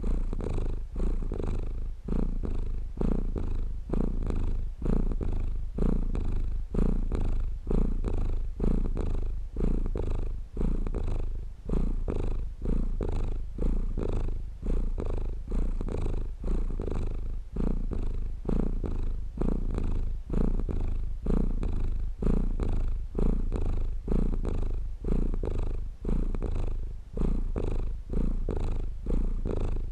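A domestic cat purring steadily, the purr swelling and easing with each breath about once a second.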